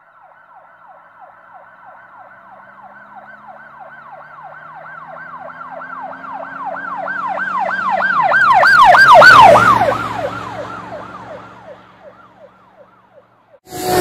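Emergency vehicle siren on a fast yelp, about four sweeps a second, growing louder as it approaches, loudest about nine seconds in, then fading as it passes. A low vehicle sound runs beneath it.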